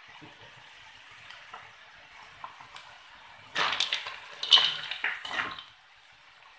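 Snail shells clattering and scraping against a metal wok as a wooden spatula stirs them, in a loud burst of about two seconds starting a little past halfway. Before it there is a faint sizzling hiss of the stir-fry.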